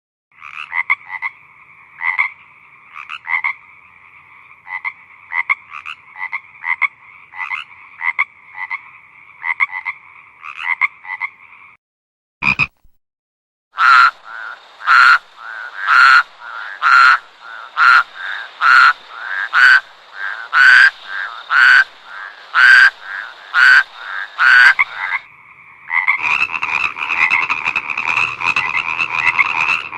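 Frogs croaking, in several joined recordings. First a run of short, repeated croaks, then after a short silence a louder series of sharp calls about twice a second, and near the end a dense, unbroken frog chorus.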